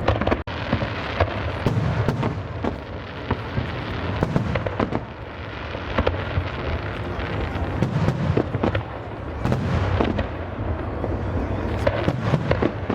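Fireworks display going off: a rapid, unbroken string of sharp bangs and crackles over a low, rolling rumble.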